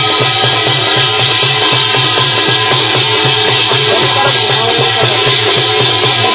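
Kumaoni folk tune played on a hudka, the hourglass hand drum, with a struck brass thali plate: a fast, even drum rhythm under a steady metallic ringing shimmer.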